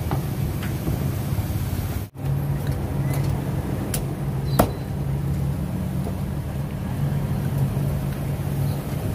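Steady low rumble of street traffic, with a few sharp knocks of a cleaver chopping roast duck on a chopping board, the loudest about four and a half seconds in.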